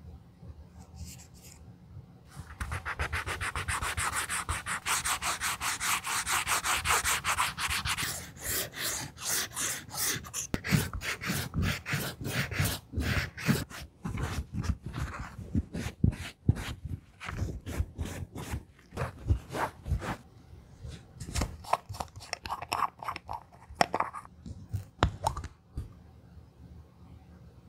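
Edge of a card holder rubbed with a small square of fine sandpaper, first in a fast, dense run of back-and-forth strokes, then with a cotton cloth in separate strokes about two or three a second, as the edge is prepared for a new coat of edge paint.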